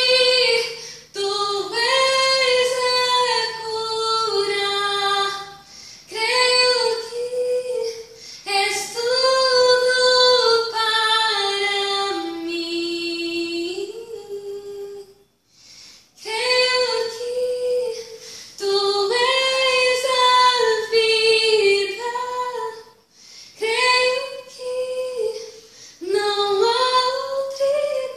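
A young woman singing a Brazilian Portuguese worship song unaccompanied, in a high, clear voice. She sings in long held phrases with short pauses for breath between them.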